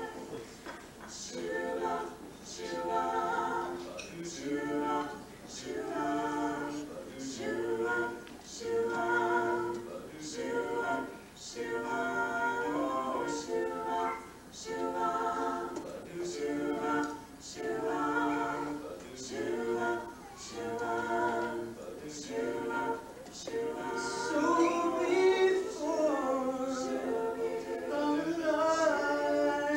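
Small mixed group of women's and men's voices singing a cappella in harmony from sheet music, in short sung phrases. The singing grows louder for the last few seconds.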